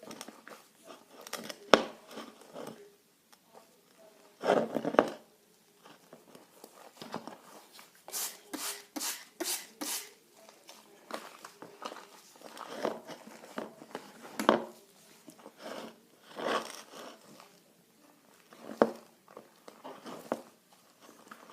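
Hands kneading and stretching butter slime, making sticky squishing and popping sounds in irregular bursts, with a quick run of pops about eight seconds in.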